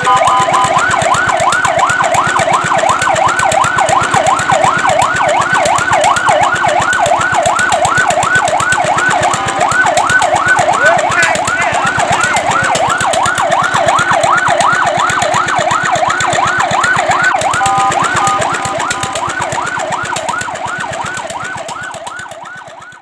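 Fire truck siren in a fast yelp, a rising wail repeated about four times a second, broken twice by short steady tones. It fades out over the last few seconds.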